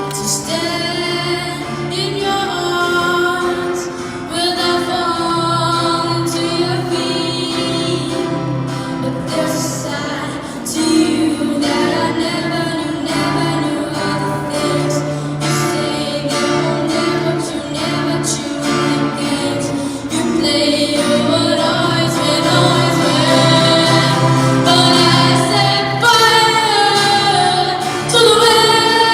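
A female voice singing a pop ballad over instrumental accompaniment.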